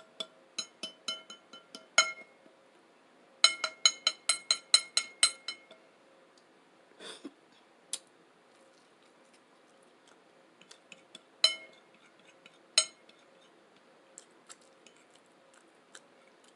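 Cutlery clinking against a dish: a quick run of ringing taps, about five a second, then a second louder run a few seconds in, followed by a few single clinks spaced seconds apart.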